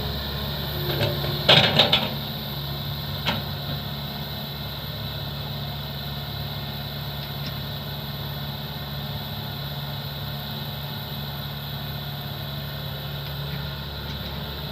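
Excavator diesel engine running steadily, with three sharp knocks in quick succession about one and a half seconds in and another a second or so later.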